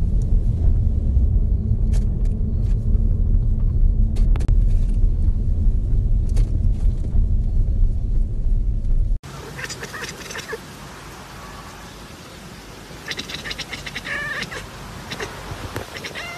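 Steady, loud low road rumble inside a moving car, with a few light clicks. It cuts off about nine seconds in to a much quieter scene where a cat gives a few short, odd calls near the end.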